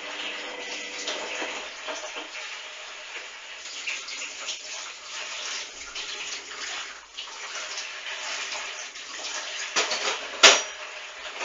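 Front-loading washing machine drum turning a wash load in sudsy water, with steady sloshing and splashing; a faint motor hum fades out about two seconds in. A single sharp knock near the end is the loudest sound.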